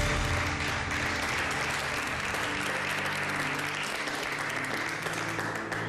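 A small group of people applauding, steady clapping that eases off near the end.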